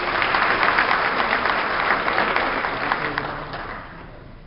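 Audience applauding. The applause is loudest in the first half and dies away over the last second or so.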